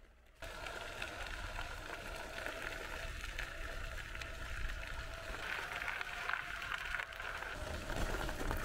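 Electric wheelchair driving along a gravel path: a steady motor whine over the low rumble and crackle of its tyres rolling on gravel, starting suddenly about half a second in.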